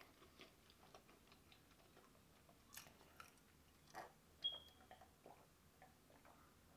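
Mostly near silence, with a few faint mouth clicks and a soft swallowing sound as a drink is sipped from a plastic cup, the loudest click about four seconds in. A brief thin high tone follows just after.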